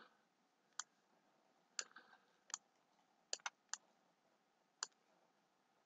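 Computer mouse buttons clicking: about seven short, sharp clicks spaced unevenly over a few seconds, with a quick double click about three and a half seconds in.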